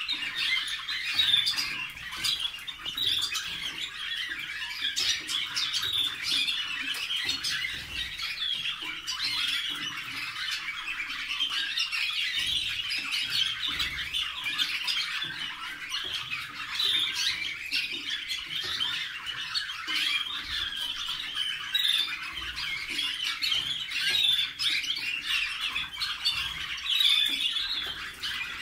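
A flock of Waterslager (Malinois) song canaries singing and calling together: a dense, unbroken chorus with no pauses.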